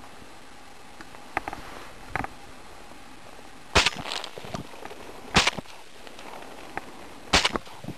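Three sharp cracks, spaced about one and a half to two seconds apart, each trailing off briefly, with a few fainter clicks before them.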